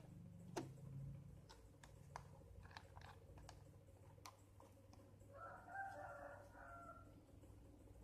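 Light clicks and taps from the plastic tray and stationery being handled. About five seconds in, a faint rooster crows once, for about a second and a half.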